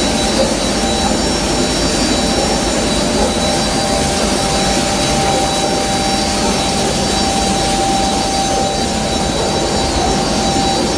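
Dry-material fine-powder grinding mill running steadily: a loud constant rush of air with a steady whine on top.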